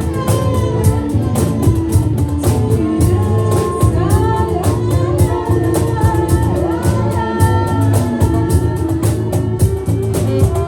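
Live psychedelic rock band playing: a steady drum beat with dense cymbal hits under a heavy bass, and a gliding, wavering lead line above.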